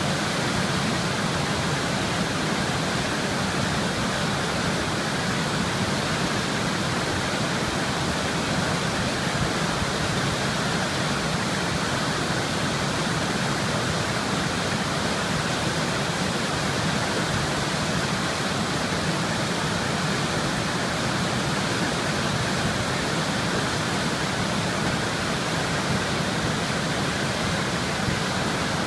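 River water flowing: a steady, even rushing with no change in level.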